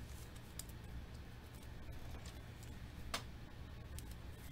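Faint clicks and taps of trading cards and a plastic card sleeve being handled, with one sharper click about three seconds in, over a low steady hum.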